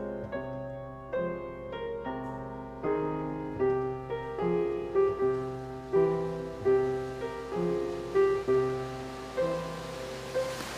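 Piano playing a slow, gentle melody over chords, one struck note after another, fading out near the end.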